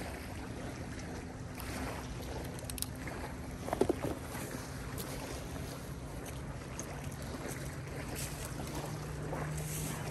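Steady wind noise on the microphone outdoors, with a brief clatter about four seconds in.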